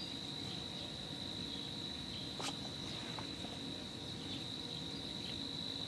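A steady high-pitched insect-like trill that runs without a break, with one faint click about two and a half seconds in.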